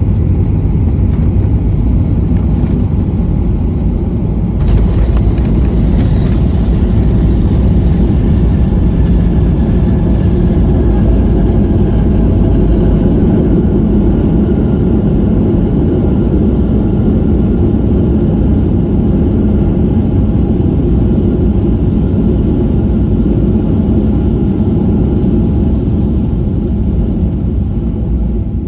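Airliner landing: a loud, steady low rumble, with a brief clatter about five seconds in.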